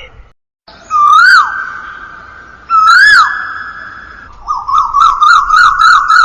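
Bird-call ringtone with a whistled tone: after a short gap, two rising-then-falling swoops about two seconds apart ride over a steady held note, then a quick run of warbling notes at about four a second.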